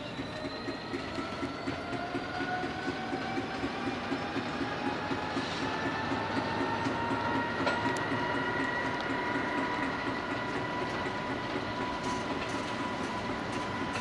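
A convoy of EWS Class 66 diesel-electric locomotives running coupled together, their two-stroke EMD V12 engines working and the wheels clicking rhythmically over the rail joints. A whine slowly rises in pitch as the sound grows louder.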